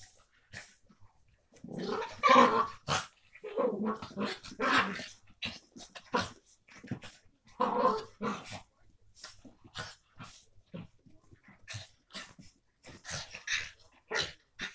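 Two miniature pinschers play-fighting, growling in bursts with short sharp yaps and scuffles between. The growls are loudest about two seconds in and again around eight seconds in.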